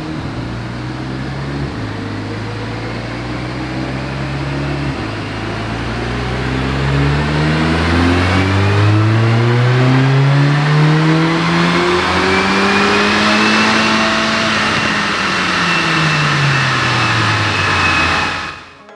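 Mercedes-AMG A45's turbocharged 2.0-litre four-cylinder in standard tune, making a baseline run on a rolling-road dyno. It shifts up twice, then climbs steadily in revs for about nine seconds to a peak, and the revs fall away over the last few seconds.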